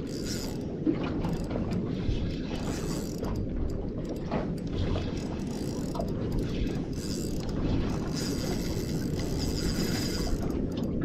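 Spinning reel cranked steadily under load, its gears ticking and grinding as a hooked fish is reeled in on a bent rod.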